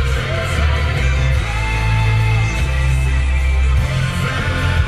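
Pop-rock song with singing and guitar playing through the car's Bang & Olufsen audio system, heavy in the bass.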